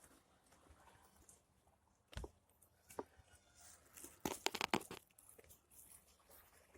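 Irregular footsteps crunching and knocking over loose stones, with a low thump about two seconds in and a quick run of clicks a little past halfway.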